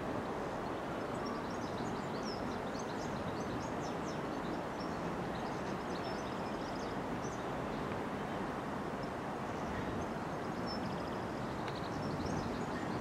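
Diesel multiple unit running away into the distance, a steady low rumble of engine and wheels, with small birds chirping over it.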